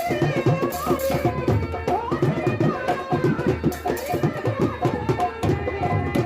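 Instrumental interlude of Indian folk nautanki music: quick, dense hand-drum strokes under a wavering, ornamented melody line.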